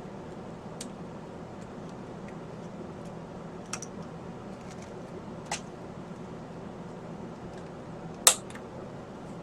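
A steady low room hum with a few short, sharp clicks or taps, spaced a second or two apart; the loudest click comes near the end.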